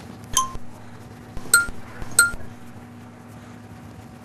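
A ceramic dinner plate clinking three times, each a short ringing tap, as small raw meatballs are set down on it.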